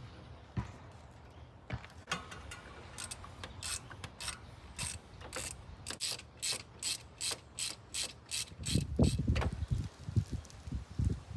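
Hand ratchet clicking steadily, about three clicks a second, as the thermostat housing bolts are run down, followed by a few heavier knocks near the end.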